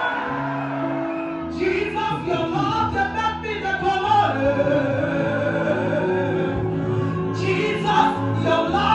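Church worship music: voices singing over long held instrumental notes.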